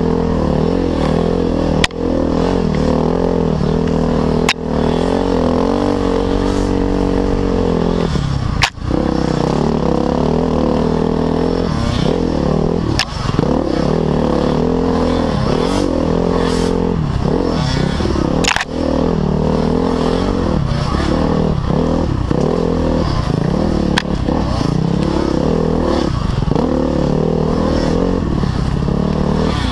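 Off-road motorcycle engine running under load on a sandy trail, its pitch rising and falling as the throttle opens and closes, with a few sharp knocks now and then.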